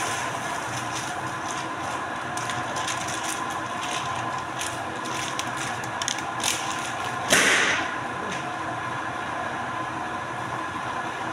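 Large sheets of printing paper crackle and rustle as a stack is lifted and handled, then land on top of a paper pile with a loud slap about seven seconds in. A steady machine hum runs underneath.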